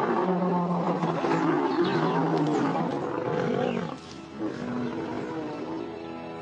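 Two male lions fighting and roaring at each other. The roaring is loud for about four seconds, then stops suddenly.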